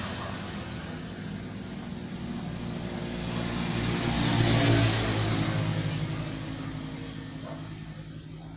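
Small motorcycle engine running after a connecting-rod rebuild, rising in speed and loudness to a peak about four to five seconds in, then easing back down.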